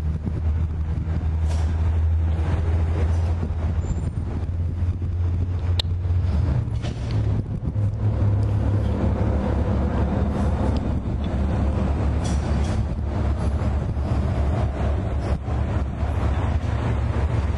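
Diesel engines of a freight train running with a steady low rumble. The engine note shifts upward about six to seven seconds in.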